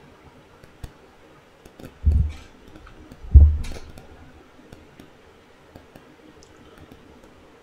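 Two short, dull low thumps, about two seconds and three and a half seconds in, the second the louder, over faint scattered clicking of a computer keyboard.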